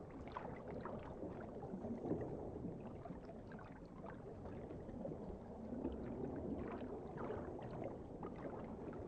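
Faint underwater ambience: a low, steady wash of water noise with many scattered soft crackles.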